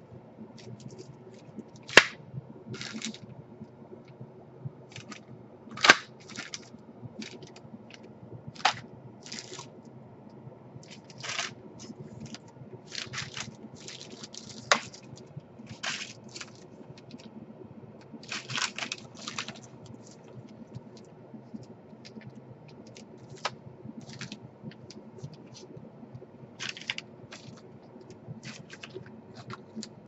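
Plastic zip-lock bags of replacement DC power jack cables crinkling and rustling as they are rummaged through, with irregular sharp clicks and knocks from parts being handled, the sharpest about two and six seconds in, over a low steady hum.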